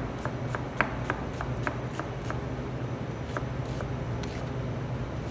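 Chef's knife chopping an onion on a plastic cutting board: quick knocks of the blade on the board, about three a second for the first couple of seconds, then fewer and more spaced out. A steady low hum runs underneath.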